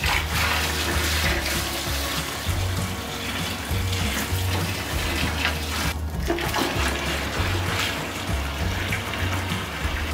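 Cleaning solution pouring from a container into a plastic bag holding range hood parts, a steady rush of splashing liquid with a short break about six seconds in. Background music plays underneath.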